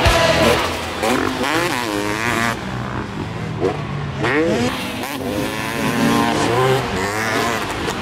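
KTM SX 300 two-stroke single-cylinder motocross engine revving up and down several times as the bike is ridden round the track, its pitch rising and falling with each swell of throttle.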